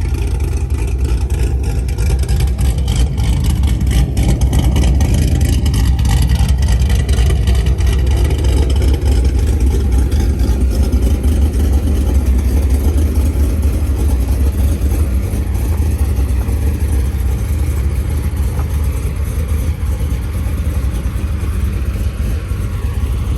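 Cammed V8 fitted with a TSP Stage 3 cam and NPP exhaust, running loud and steady with a choppy exhaust note.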